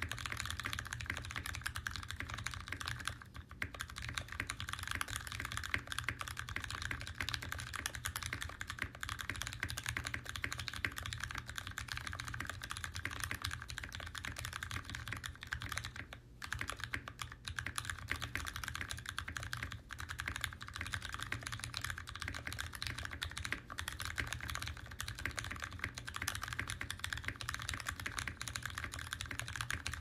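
Continuous fast typing on an NK65 EE mechanical keyboard with lubed Ergo Clear tactile switches on an aluminium plate and GMK doubleshot ABS keycaps: a dense stream of keystrokes with the chalky, slightly plasticky sound of that board and switch. The typing pauses briefly about three and a half and sixteen and a half seconds in.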